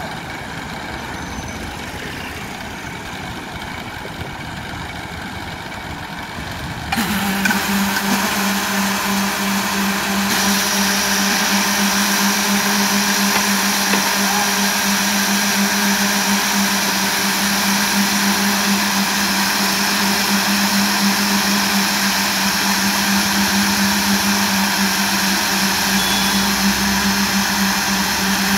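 Concrete road-paving machine with poker vibrators running steadily. About seven seconds in it gets suddenly louder, with a strong steady hum added, and holds there.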